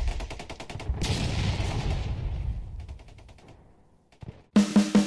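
Rapid machine-gun fire over a deep rumbling blast. It fades away over a couple of seconds. Near the end a drum beat starts.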